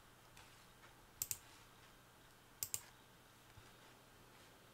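Computer mouse double-clicked twice, each a pair of sharp clicks in quick succession, about a second and a half apart.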